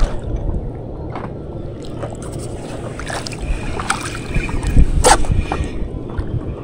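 Wind rumbling on the microphone over small splashes and lapping of water at the edge of a paddleboard, with a few light knocks and one sharp click about five seconds in.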